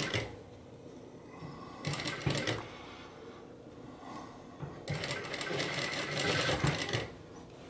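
Singer sewing machine stitching in short runs: a brief run right at the start, another about two seconds in, and a longer one from about five to seven seconds, with pauses between as the sleeve is sewn into the armhole.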